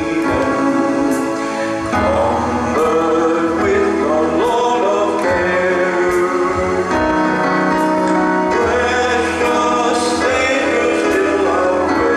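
A hymn played on an electronic keyboard: sustained chords with a melody line moving over them, changing about every second or two.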